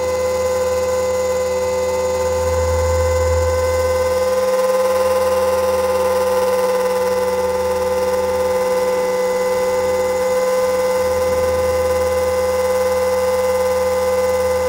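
Onboard sound of a battery-electric RC helicopter in flight: a steady motor and gear whine that holds one pitch, with low rushing air that swells and fades.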